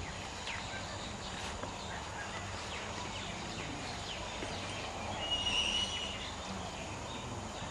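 Outdoor ambience: many short high chirps over a low, steady rumble, with one brief high whistled note about five seconds in.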